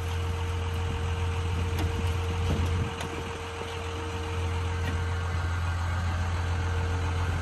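Heavy loader's diesel engine running steadily as its hydraulic grapple claw lifts a scrap car off a trailer, with a steady low drone and a steady higher tone over it that dips a little about three seconds in.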